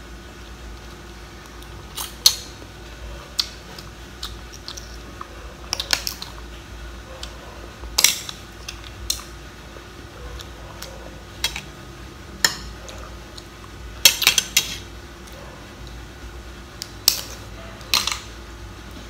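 Mud crab claw shells cracking and clicking as they are bitten open and handled. There are about a dozen sharp, irregular cracks and clicks, with the loudest about eight seconds in and a quick cluster around fourteen seconds, over a faint steady hum.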